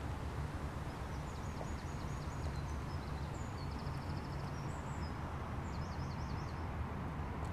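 A steady low rumble, with a small songbird singing high, quick trilled phrases over it from about a second in until near the end.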